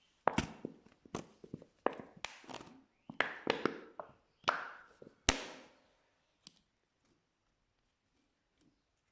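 Slime being pressed and poked, giving a quick run of sharp wet pops and clicks for about six seconds, then falling quiet apart from one faint click.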